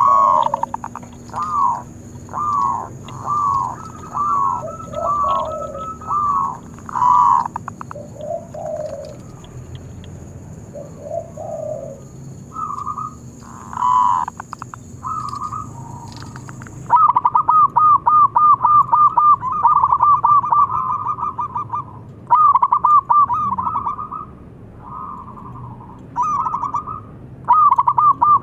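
Zebra dove (perkutut) singing its cooing song. Short bubbling phrases repeat about once a second at first, then from about halfway a long fast run of clipped coos follows, broken by short pauses.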